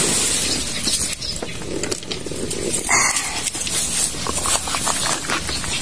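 Dry grass and reed stalks rustling and crackling as they are pushed aside and handled, a busy run of small crackles with a brief louder scrape about three seconds in.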